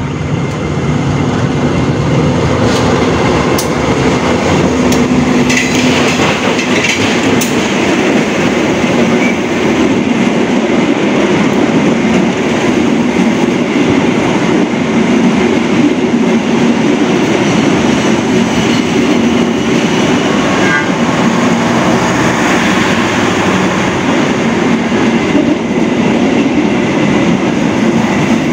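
Indonesian diesel locomotive passing close, followed by a long line of passenger coaches rolling by, their wheels running on the rails. The rumble stays loud and steady throughout, with a few sharp clicks in the first several seconds.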